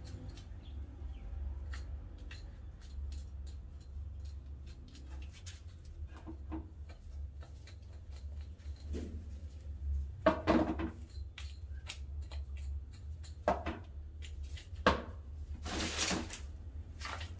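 Knife and hands working on a hanging goat carcass: many small clicks and knocks, with a few louder, roughly second-long scraping rustles in the second half, over a steady low hum.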